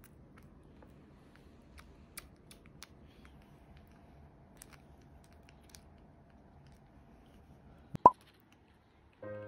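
Faint wet clicks and smacks of a young kitten suckling milk from a nursing bottle. About eight seconds in there is one brief, loud, rising squeak. Background piano music starts near the end.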